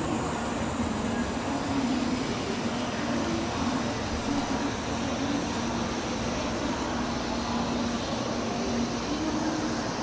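Steady low hum and rumble of a Tokaido Shinkansen train at the platform, with a wavering droning tone.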